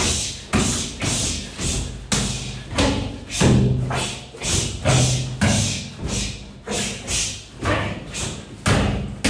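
Forearm and hand strikes landing on a BOB (body opponent bag) training mannequin: sharp thuds in runs of two or three about half a second apart, each ringing out briefly.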